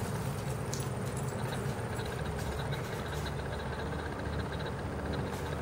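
A steady low motor hum, with a few faint clicks in the first few seconds.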